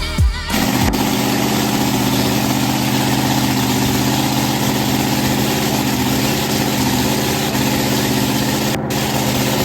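A drag boat's racing engine idling steadily. It follows a sudden cut from background music about half a second in.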